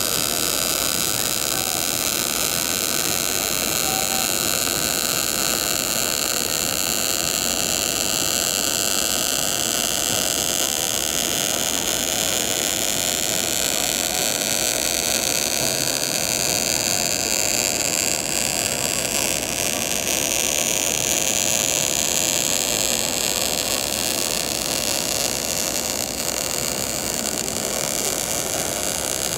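MIG welding arc burning as a bead is run along sheet metal: a steady, unbroken hiss.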